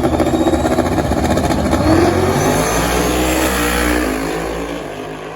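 Drag-race cars at full throttle accelerating away down the strip, engines running hard with a high whine rising with speed. The sound fades after about four seconds as they pull away.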